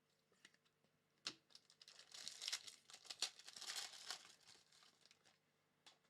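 Faint plastic-foil wrapper crinkling and tearing as a pack of trading cards is opened by hand, with a sharp click about a second in and another near the end.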